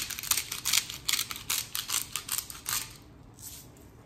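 Hand-twisted sea salt grinder being cranked, its grinding mechanism giving a quick run of gritty clicks, about five or six a second, that stops about three seconds in.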